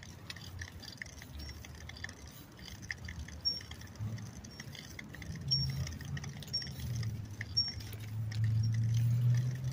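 A bicycle in motion, rattling and clicking lightly, with a brief high squeak about once a second. A low rumble grows louder over the second half.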